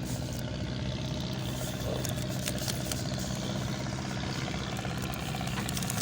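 A fishing launch's engine running steadily with an even low drone, with a few light rattles over it.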